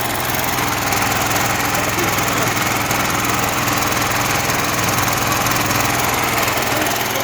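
Repaired 4-inch pump engine running steadily while coupled to an electric generator, an even mechanical drone with no change in speed.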